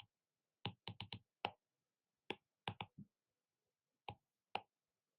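Calculator buttons being pressed to enter a sine calculation: about a dozen faint short clicks in irregular clusters.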